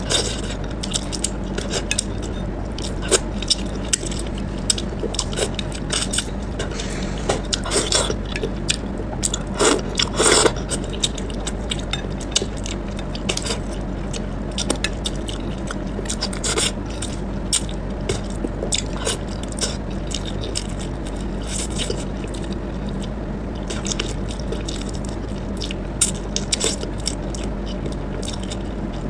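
Close-up eating sounds: chewing and lip smacking on braised fish, with chopsticks clicking against the plate and bones, over a steady low hum. A busier patch of louder clicks and mouth noises falls about a third of the way through.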